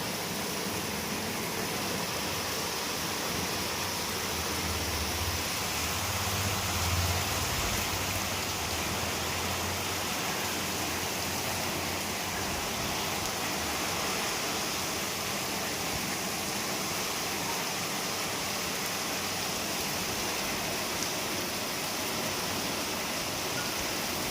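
Heavy rain falling steadily, a continuous even hiss of rain and running water. A low rumble rises under it from about four to ten seconds in.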